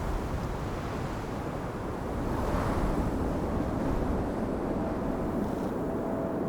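Steady rushing noise that swells briefly about two and a half seconds in, with a faint thin steady tone coming in near the end.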